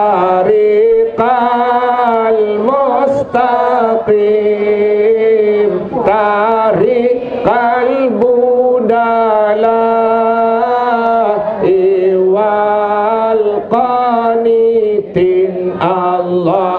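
A man chanting an Islamic devotional sholawat in Arabic into a microphone, in long held notes with ornamented turns and short pauses for breath between phrases.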